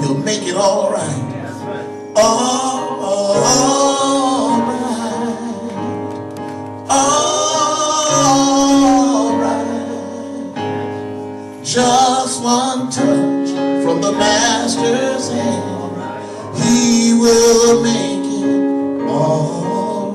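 A man singing a gospel song into a microphone, accompanied by an electronic keyboard. He sings in long phrases that start about every four to five seconds, over sustained keyboard chords.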